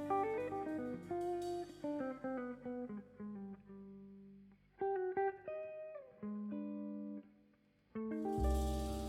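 Background music: plucked guitar picking out a melody note by note, with a fuller chord and bass coming in near the end.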